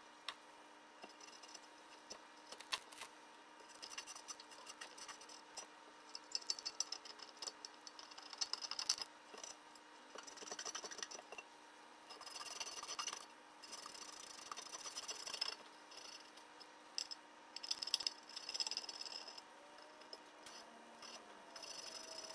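Small hand tool scraping and picking at a two-stroke engine's crankcase half. It makes irregular light clicks and short bursts of scratching, over a faint steady hum.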